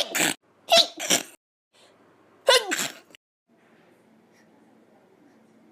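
A person sneezing several times in quick succession over about three seconds, the bursts coming sharply, with the last one about two and a half seconds in.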